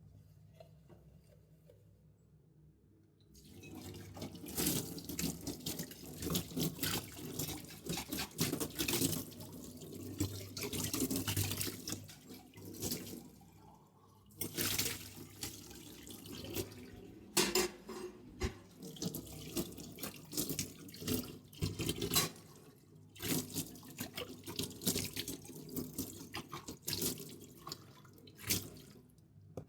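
Tap water running into a sink while metal kitchen vessels are washed, with irregular clinks and knocks of the vessels against each other. The water starts about three seconds in and drops away briefly about halfway through.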